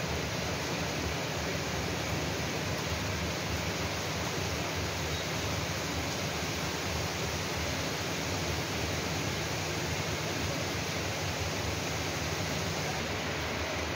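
Heavy rain falling in a steady, even hiss, with no separate drops or other events standing out.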